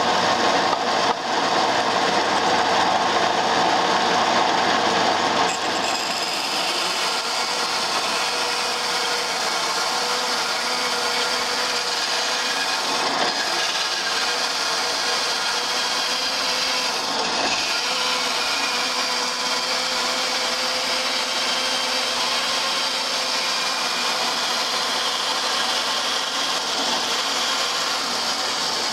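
Bandsaw running steadily while its blade rips lengthwise through a small bark-covered log being fed against the fence. The sound is a little louder for the first few seconds and then settles to an even level.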